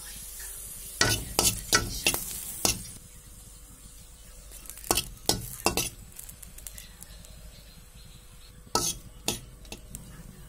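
A spatula scrapes and taps against a pan while whole green chillies are turned as they roast, with a light sizzle over the first few seconds. The strokes come in three short clusters: about a second in, around five seconds, and near nine seconds.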